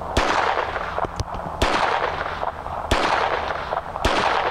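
Four shots from a Phoenix Arms HP25 .25 ACP pocket pistol, a little over a second apart, each trailing off in an echo.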